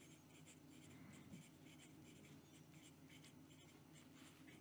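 Faint scratching of a steel fountain pen nib on notebook paper: quick, repeated short strokes of fast writing.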